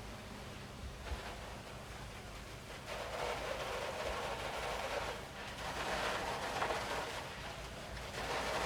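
Fire-apparatus engines running with a steady low hum, joined about three seconds in by a louder rushing hiss that dips briefly and swells again.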